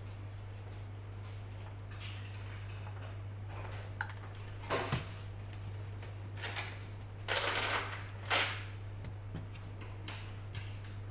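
A few brief rustling and clinking handling noises over a steady low hum, the loudest about eight and a half seconds in.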